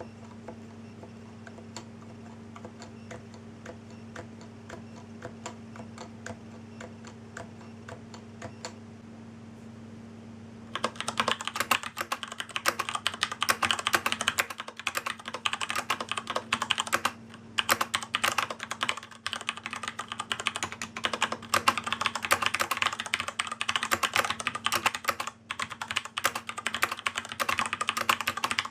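Typing on a gaming keyboard: faint key clicks at first, then after a sudden change about a third of the way in, loud, fast, continuous keystroke clatter.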